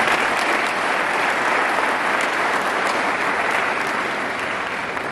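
Audience applauding, steady hand-clapping from a seated crowd that eases off slightly near the end.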